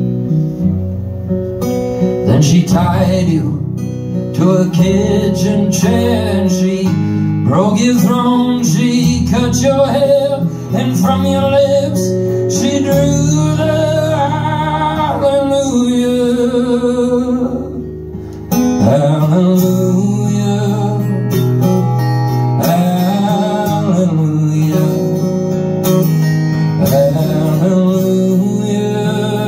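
A man singing and playing acoustic guitar live. The sound drops off briefly past the middle before the singing and guitar pick up again.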